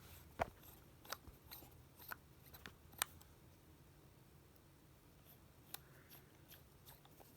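Scattered light clicks and taps from handling a reassembled iPhone 7, with faint room tone between them.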